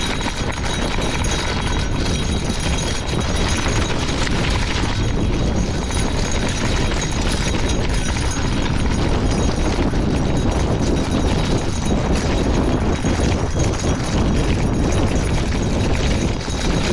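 Wind rushing and buffeting the camera microphone while a gravel bike rides down a rocky dirt fire road, its tyres crunching and the bike rattling over loose stones.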